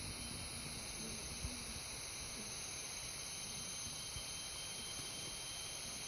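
Steady high-pitched drone of rainforest insects, several shrill tones held together, growing a little louder about halfway through.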